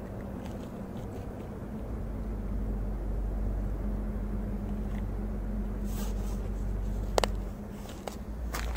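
Steady low outdoor rumble with a single sharp click about seven seconds in, and no firecracker bang: the relit firecracker has failed to go off.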